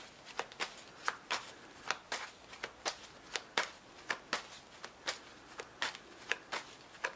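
A deck of tarot cards being shuffled by hand: a run of short, sharp card snaps, about three a second.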